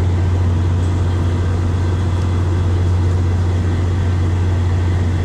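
VIA Rail F40PH-2 diesel-electric locomotive standing at the platform, its engine running with a steady low drone that does not change in pitch or level.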